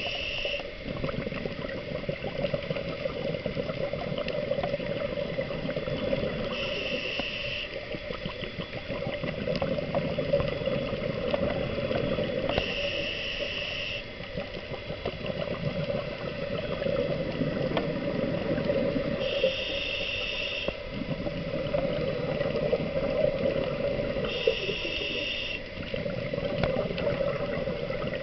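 A scuba diver breathing through a regulator underwater: a short hiss with each inhale, about every six seconds, and bubbling exhales in between.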